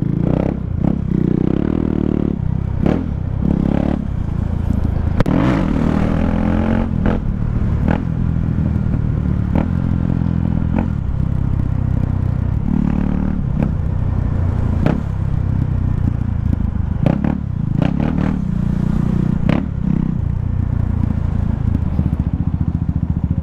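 KTM Duke 390's single-cylinder engine with an open (straight) exhaust, running while ridden; its pitch rises and falls again and again with the throttle. Many short sharp crackles run through it.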